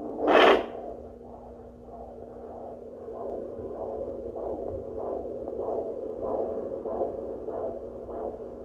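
Home fetal Doppler (Simply Tots Baby Sound C) playing through its speaker: a loud crackle about half a second in, then a pulsing whoosh repeating about two and a half times a second, a rate that fits the fetal heartbeat at 11 weeks rather than the mother's pulse.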